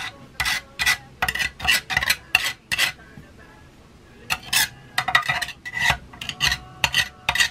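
A scraper dragged in quick, repeated strokes against the inside of an engine oil pan, scraping out thick sludge, with a light metallic ring. The strokes come about three or four a second, stop for about a second near the middle, then start again.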